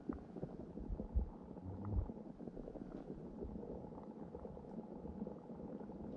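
Muffled underwater noise heard through a submerged action camera's waterproof housing: a steady low, bubbling rumble with faint scattered ticks. Two dull thumps stand out, about one and two seconds in.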